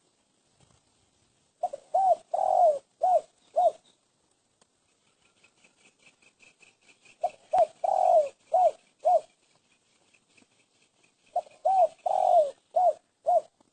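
Spotted dove (terkukur) cooing: three phrases of about five low notes each, a few seconds apart, with the third note of each phrase drawn out longer than the rest.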